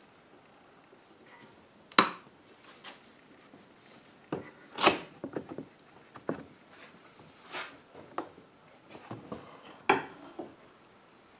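Woodworking clamps being handled and set: irregular sharp knocks and clicks of metal pipe clamps and a wooden handscrew clamp against wood, with four louder knocks spaced two to three seconds apart.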